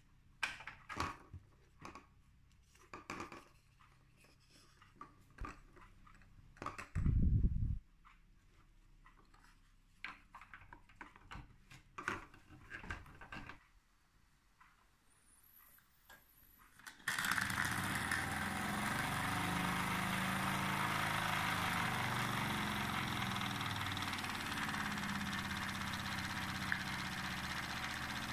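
Handling clicks and taps, with one loud low thud about a quarter of the way in. Then, a little past the middle, a Wilesco model steam engine is given steam and starts running, a steady hiss of steam with mechanical running noise that carries on.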